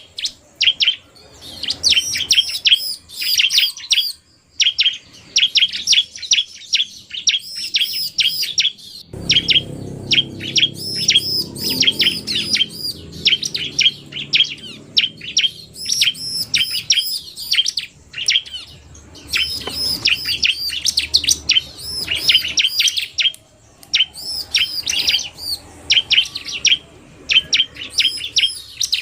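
Bar-winged prinia (ciblek) singing in rapid bursts of sharp, high, repeated chirps, the fast, aggressive 'narung' song that bird keepers use as a lure.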